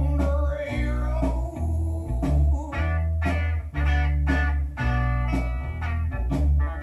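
Blues-rock music with plucked guitar notes over a deep bass line that changes note about once a second.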